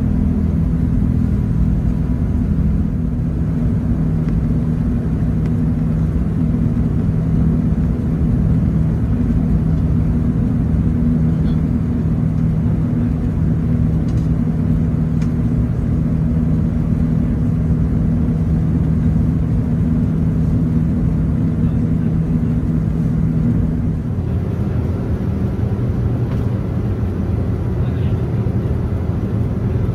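Steady jet-airliner rumble heard inside an Airbus A380 cabin, a low drone with a few steady hum tones. About 24 seconds in it eases slightly and a faint higher whine joins it.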